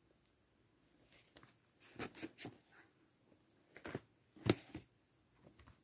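Plastic DVD and Blu-ray cases clacking as they are handled and swapped. There are a few scattered clicks from about two seconds in, and one sharp clack about three quarters of the way through.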